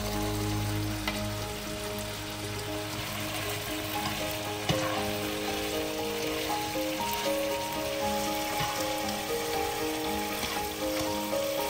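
Food frying in hot oil in a pan, a steady sizzle, with one sharp utensil click about five seconds in. Soft background music with held, stepping notes plays over it.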